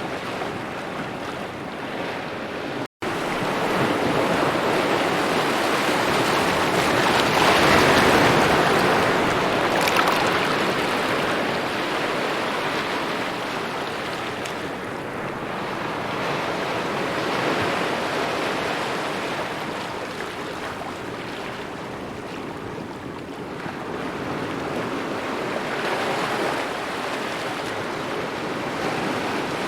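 Small waves lapping on a shore, a continuous wash that rises and falls in slow swells, the biggest about eight seconds in. A split-second gap of silence cuts in about three seconds in.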